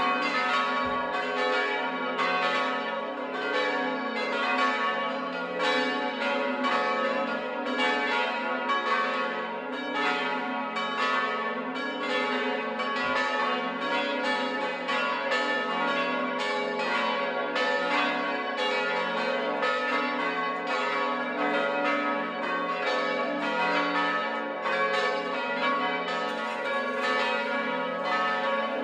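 A full peal of five electrically swung church bells tuned to F#3, G#, A#, B and C#, all swinging and striking together in a dense, unbroken stream of overlapping strokes. This is the first call to Sunday mass.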